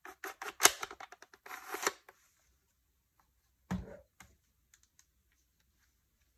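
Plastic body of a Bug-A-Salt salt gun handled in gloved hands: a quick run of clicks, taps and rustles for about two seconds, then a single dull knock a little past the middle, followed by a few faint ticks.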